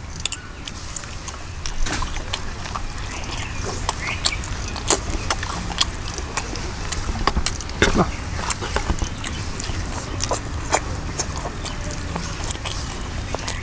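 Close-up sounds of a man eating chicken curry and rice by hand: wet chewing and smacking, with many short clicks scattered throughout.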